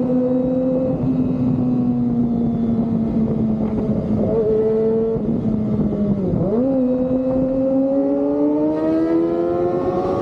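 Kawasaki ZX-25R's 250 cc inline-four running through an Austin Racing aftermarket exhaust under way, holding steady revs. The revs dip briefly and recover about six seconds in, then climb steadily near the end as it accelerates.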